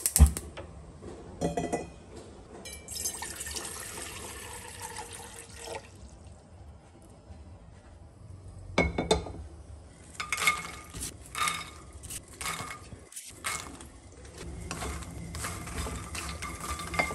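Water poured in a stream into a stainless steel pot for about three seconds, with clinks of metal cookware before and after. From about ten seconds in, fox nuts (makhana) are stirred in a nonstick kadai with a wooden spatula, knocking repeatedly against the pan.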